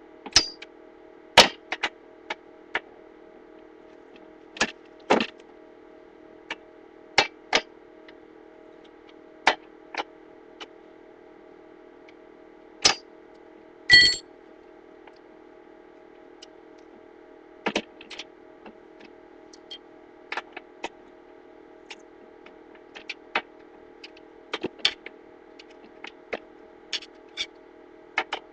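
Hand tools and metal fittings clicking and clinking as they are handled, irregular sharp knocks every second or two, with one ringing metal clink about 14 seconds in, over a steady low hum.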